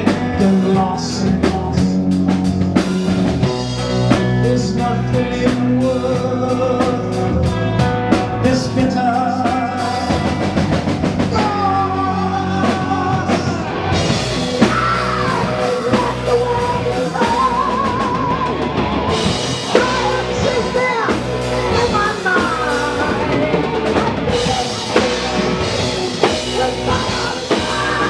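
Heavy metal band playing live: electric guitars and drum kit with a male lead singer.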